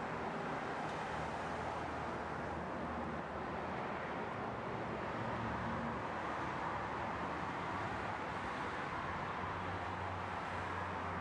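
Ferrari FF's 6.3-litre V12 idling steadily, heard from inside the cabin as an even low hum with no revving.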